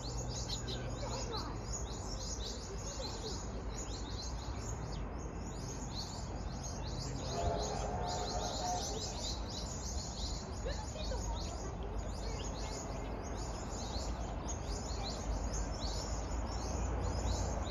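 Many small birds chirping busily and continuously, over a steady low background rumble.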